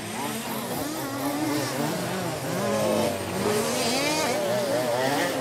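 Several fifth-scale off-road RC cars' small two-stroke petrol engines revving and easing off as they race, their pitches rising and falling over one another.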